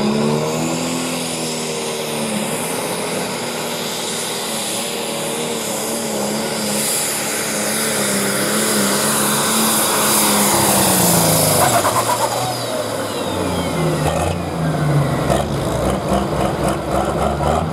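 Super stock pulling tractor's turbocharged diesel engine revving up at the launch and held at high revs under full load while dragging the sled. About twelve seconds in it winds down, a high turbo whine falling away after it, and it settles to a lower idle near the end.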